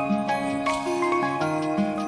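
Background music: a light electronic tune of steady notes changing in steps.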